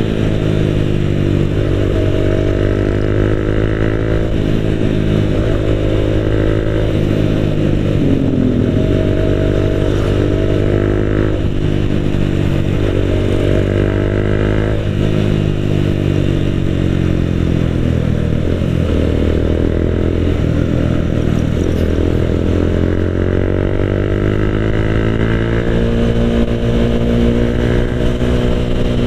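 The rider's own motorcycle engine and exhaust under way, heard close up from the saddle. It revs up and eases off again and again, its pitch climbing and then dropping every few seconds as it works through the gears in traffic.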